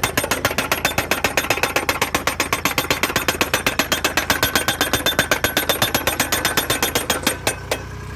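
Hydraulic guardrail post driver hammering a steel post into the ground with a rapid, even train of blows that stops abruptly near the end.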